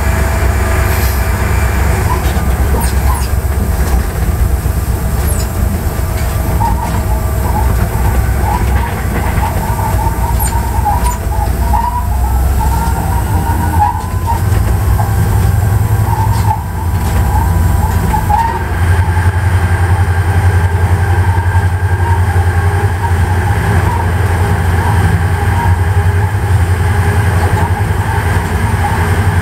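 Cab sound of an EMD GT36HCW diesel-electric locomotive under way: its two-stroke V16 diesel engine gives a steady low drone. From about a quarter of the way in until past the middle, the wheels squeal intermittently on curved track.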